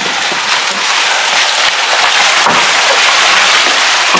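Steady crackling, clattering handling noise of wet fresh fish being moved by hand between plastic baskets and crates.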